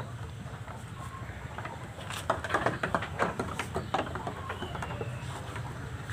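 Lambs' hooves knocking on a bamboo-slatted pen floor as two young lambs scuffle: a quick flurry of sharp taps for about two seconds in the middle, over a steady low rumble.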